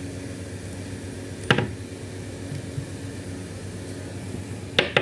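Small handling knocks: a sharp tap about a second and a half in and two quick clicks near the end, as a test clip and a titanium bolt are set down by a plastic cup. A steady low hum runs underneath.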